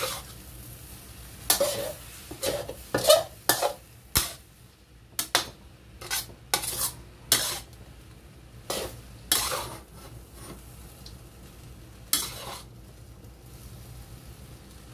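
Spatula scraping and knocking against a wok as rice vermicelli with vegetables is stir-fried and tossed, over a light sizzle. The strokes come in quick bunches through the first ten seconds, then thin out to an odd one.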